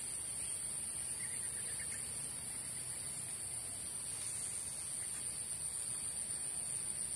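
Steady high-pitched insect chorus, with a short run of faint chirps about a second in.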